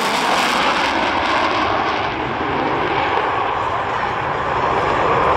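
Loud, steady roar of F-16 Fighting Falcon jet engines in flight. The sharpest hiss drops away about a second in as the jet noise carries on.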